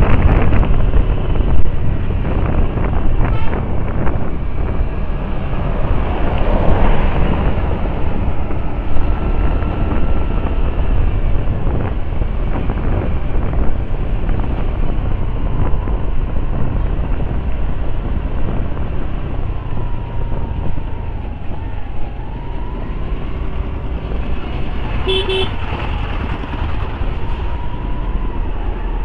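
Wind rumble and road noise from a moving scooter, easing off as it slows into a highway toll plaza, with traffic around it. A short vehicle horn toot sounds about 25 seconds in.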